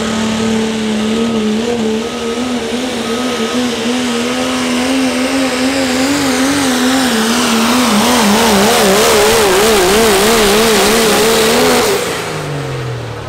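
Diesel pickup truck at full throttle during a pull, its engine held at high revs with the pitch wavering up and down while the noise builds. Near the end the engine note drops away and falls in pitch.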